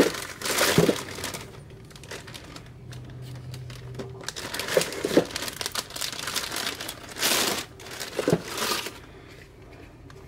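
Plastic zip-lock bags crinkling and rustling as hands rummage through a cooler full of electrical parts, with a few short knocks of parts being moved.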